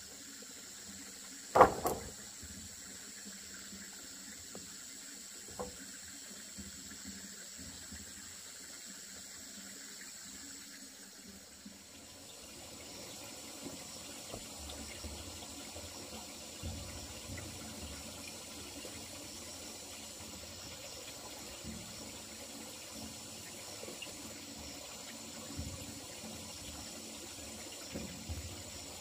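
Water running steadily, with a sharp knock about two seconds in and lighter knocks scattered through the second half.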